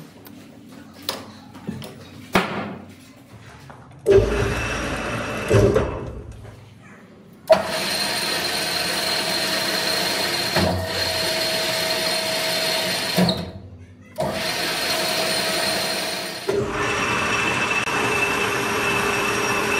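Metalworking machinery in a factory: a few scattered knocks, then a steady whirring machine noise with a high whine running through it, cut off and restarting abruptly several times.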